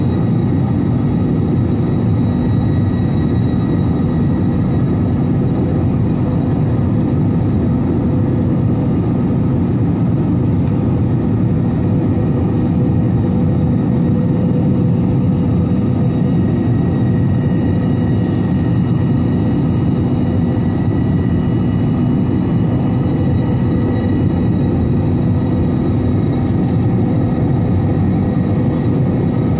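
Steady cabin noise of an Airbus A321-211: a loud, even rush from its CFM56 jet engines and the air around the fuselage, with a few faint constant tones running through it and no change in level.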